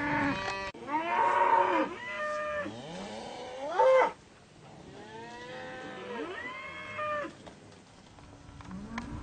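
Several overlapping drawn-out animal calls, each rising and then falling in pitch, coming in bouts with short pauses between them.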